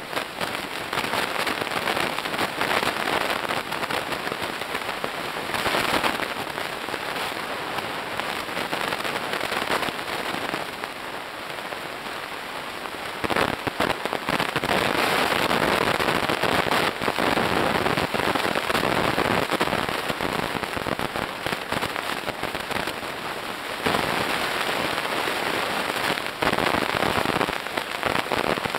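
Dense, steady crackling of snapping shrimp heard underwater on a coral reef, growing louder about halfway through.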